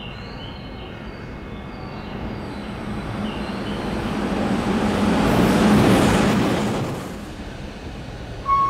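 Tobu Skytree Line electric commuter train passing through the station, its running noise building over a few seconds, loudest just past the middle, then quickly fading away.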